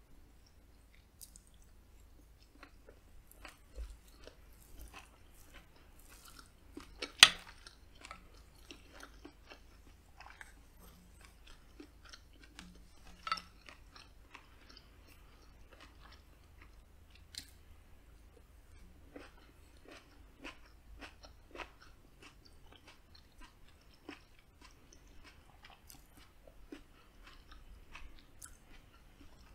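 Close-miked chewing of smoked sausage and rice, with soft wet mouth sounds and many small clicks. Two sharp clicks stand out, the loudest about seven seconds in and another about thirteen seconds in.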